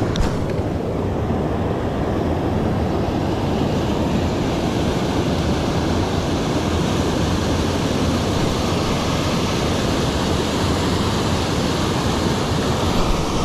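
Steady rushing noise of flowing river water, with a short sharp click right at the start.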